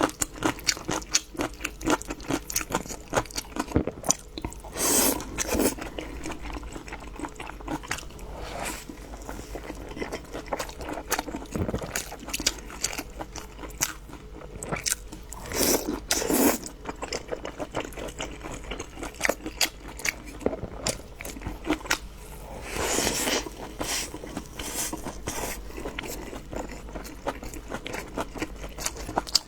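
Close-miked eating: crunchy bites and continuous chewing, with many small irregular crunches and a few louder, longer sounds several seconds apart.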